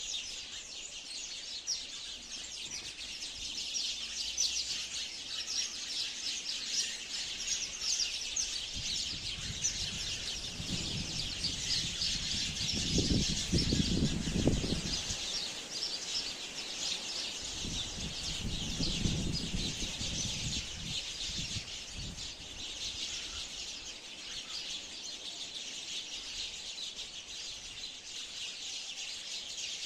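A flock of sparrows chirping without pause, a dense chatter of many short, high chirps overlapping. A low rumble swells up about halfway through, then again a few seconds later, the first swell being the loudest moment.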